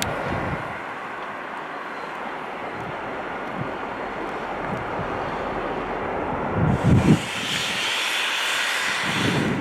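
Train running past with a steady rushing roar. About seven seconds in, a louder, higher hiss joins it, with a few low thumps of wind buffeting the microphone.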